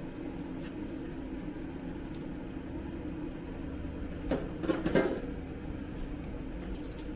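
Plastic basket drawer of a Ninja Foodi Max Dual Zone air fryer knocking and scraping as it is slid back into its slot, about four seconds in, over a steady low hum.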